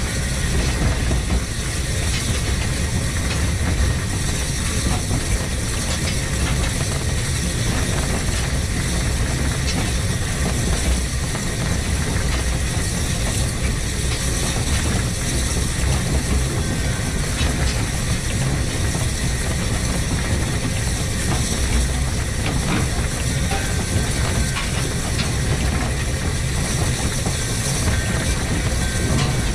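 1915 Orenstein & Koppel steam locomotive running along the track: a steady low rumble with scattered light clicks from the running gear and rails.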